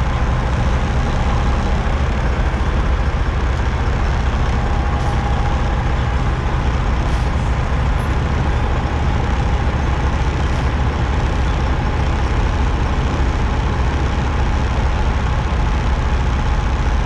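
Semi-truck diesel engines idling, a steady low rumble with a faint steady whine over it.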